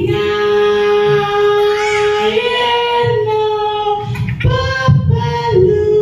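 A child singing a song in long held notes, with a short break about four and a half seconds in.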